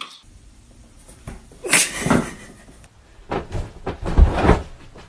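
A door knocking and rattling: a sharp clack a little under two seconds in, then a run of dull thumps about a second later.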